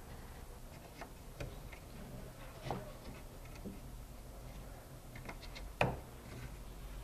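Scattered light wooden clicks and taps as a wooden crossbar is worked into the notched side bar of a Masterpiece Monet Pro stretcher bar frame, with one sharper knock near the end.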